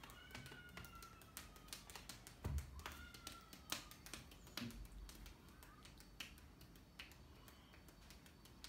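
Soft taps and pats of a children's back massage, small fists pounding a man's back, with a few louder thumps around the middle as a child steps on him.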